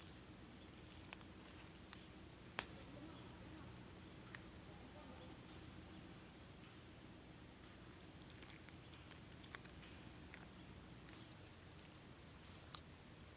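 Steady, high-pitched insect chorus from the field, with a few sharp clicks, the clearest about two and a half seconds in.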